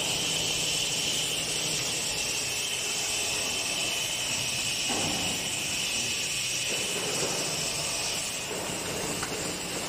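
10-litre water bottle filling machine running: a steady machine whir with a high hiss, and a swell of rushing noise about five seconds in.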